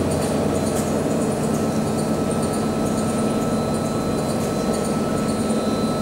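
Electric gantry crane hoist running steadily as it lifts a small steam locomotive. It gives a constant mechanical hum with a thin, high, steady whine over it.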